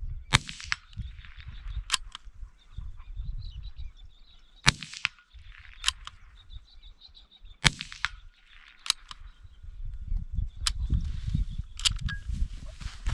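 Rifle shots fired every few seconds: three loud sharp reports, each followed about a second later by a fainter crack, over low wind noise on the microphone.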